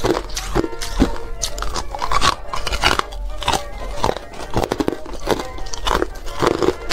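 Chunks of frosty ice bitten and crunched between the teeth: a quick, irregular run of sharp crunches and chewing, several a second.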